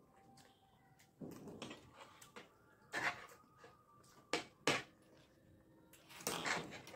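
Eating at a table: metal spoons scraping and tapping on plates while two people chew soft, wet chaat, in a few separate bursts, with two sharp clicks about four and a half seconds in.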